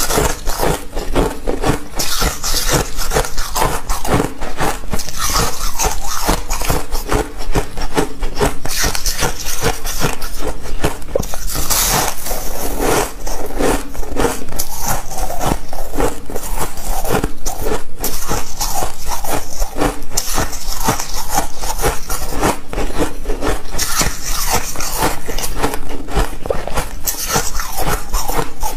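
Frosty ice chunks being crunched between the teeth close to the microphone: a steady run of crisp cracks and crunches.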